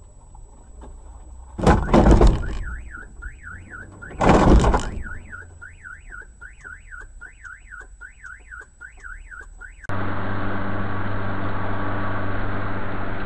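Two loud crash impacts a couple of seconds apart, then a car alarm wailing, its tone sweeping up and down two to three times a second. Near the end it cuts off suddenly to steady vehicle road noise and engine hum.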